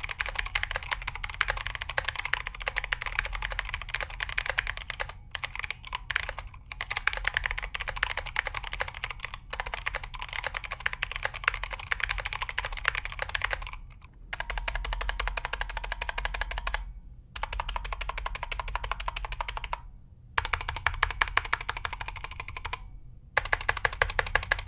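Stock Drop Ctrl High Profile mechanical keyboard with Halo True switches being typed on steadily, fast clacking keystrokes with a few brief pauses. The stabilizers rattle and the aluminium case pings: the sound of an unmodded board.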